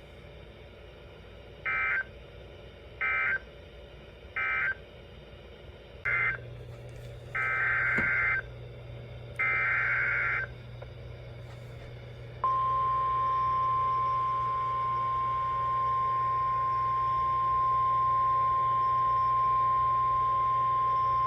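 NOAA Weather Radio emergency alert signalling: three short warbling data bursts closing the previous message, then three more data bursts announcing the next warning's header, then the steady 1050 Hz weather alert tone sounding continuously. A low steady hum runs under the later part.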